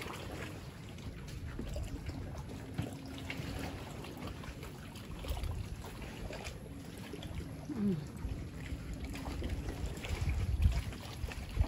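Shoreline ambience: wind rumbling on the microphone in gusts, stronger near the end, over lapping water, with faint voices in the distance.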